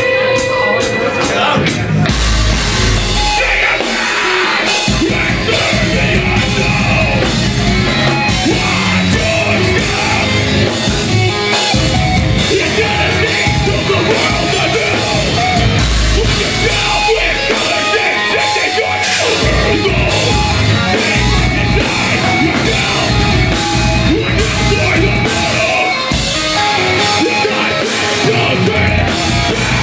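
Live metalcore band playing at full volume: distorted electric guitars, drums and a vocalist on the microphone. A ringing clean guitar note fades as the full band comes in about two seconds in.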